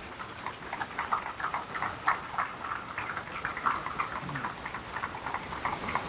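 Audience applauding, with many separate hand claps heard.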